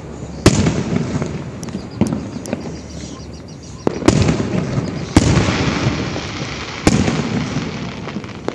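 Aerial fireworks shells bursting: about five sharp booms a second or two apart, each trailing off in a rumbling echo, with a few lighter cracks in between.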